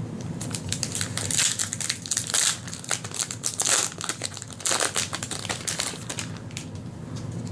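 Foil wrapper of a Magic: The Gathering booster pack crinkling and crackling as it is handled and opened by hand, densest for the first few seconds, then thinning to a few scattered crackles.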